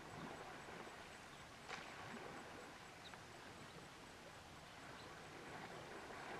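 Near silence: faint outdoor background hiss broken by a few soft, brief knocks.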